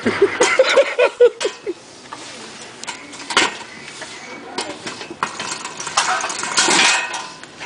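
A voice briefly at the start, then scattered sharp knocks and clinks of hard objects being handled, with a rustling stretch near the end.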